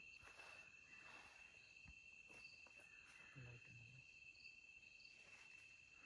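Faint, steady, high-pitched trill of crickets, with a few fainter short chirps above it.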